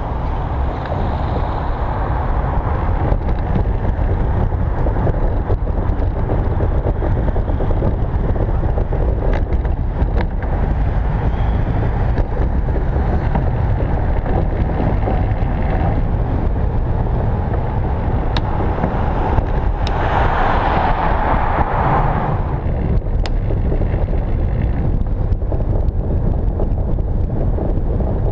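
Steady rolling rumble of a velomobile underway: tyre noise on the paving and wind over the nose-mounted camera. A hiss swells for about two seconds roughly two-thirds of the way through, and a few sharp ticks come through.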